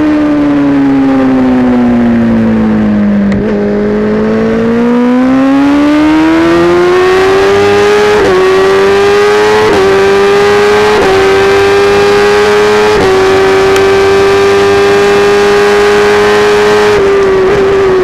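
Kawasaki Ninja ZX-10R inline-four with an Akrapovič track exhaust, heard onboard at racing speed: the engine note falls as the bike slows into a corner, then climbs hard out of it, with four quick upshifts about 8, 10, 11 and 13 seconds in before it holds high.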